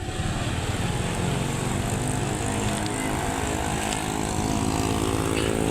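Bus diesel engine running steadily.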